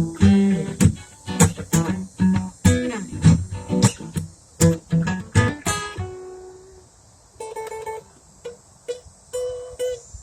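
Guitar strummed in a steady rhythm, about three strokes a second, for some six seconds, then a few quieter, sparser notes.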